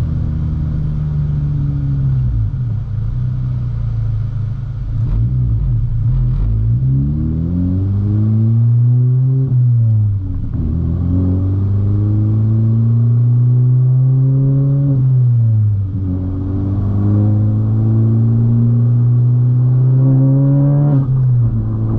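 A tenth-generation Honda Civic Si's 1.5-litre turbocharged four-cylinder engine accelerating through the gears. Its pitch climbs steadily and falls sharply at each upshift, about 9 seconds in, again near 15 seconds and once more near the end.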